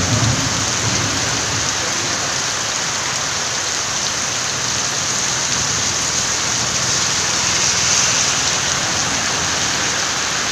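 Heavy rain pouring steadily onto a flooded road and standing water, a dense even hiss. A brief low rumble sits under it in the first second.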